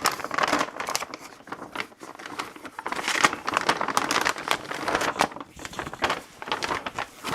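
Plastic packaging bag crinkling and rustling as it is handled and opened, in irregular bursts of crackling.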